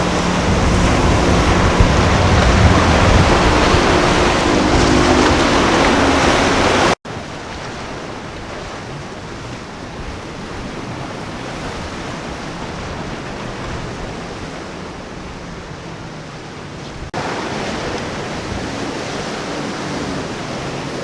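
Powerboat engines running with a steady drone over rushing water and wind noise on the microphone. About seven seconds in the sound cuts to a quieter wash of surf and wind, which grows louder again near the end.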